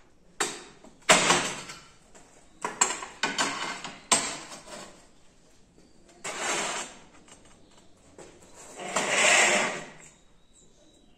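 A porcelain tile slid and scraped across a workbench into place against a homemade tile cutter, with the cutter's carriage slid along its metal rail. There are about half a dozen separate scraping slides, the loudest just over a second in and a longer one near the end.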